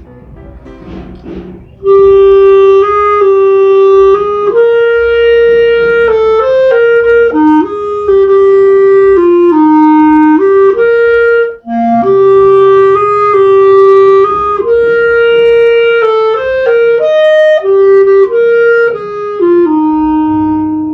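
Solo clarinet with an ebony body playing an unaccompanied melody of held notes. It starts about two seconds in and has a brief pause for breath near the middle.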